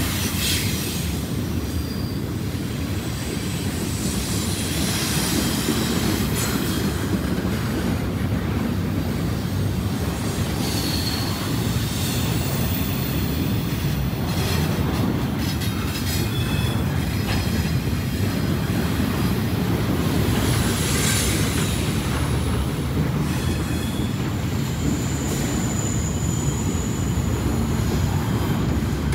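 Freight train cars rolling past: a steady low rumble of wheels on rail, with brief high-pitched wheel squeals now and then.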